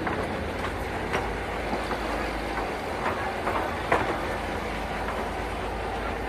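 Steady low rumble of a passenger river boat's engine underway, with occasional sharp knocks.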